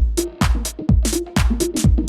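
Electronic house-style background music with a steady kick drum about twice a second and hi-hats.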